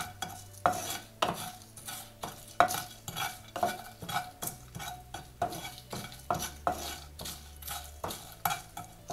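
Wooden spatula stirring dried red chillies and ground spices as they dry-roast without oil in a nonstick kadai, scraping across the pan about twice a second.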